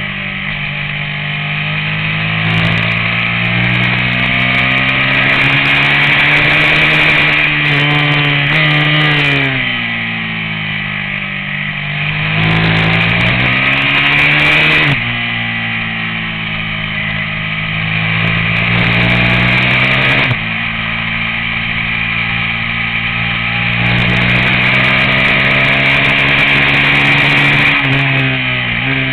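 Racing motorcycle engine at high revs on a track, its pitch climbing as it accelerates, dropping abruptly at upshifts twice, and sliding down as it slows for corners.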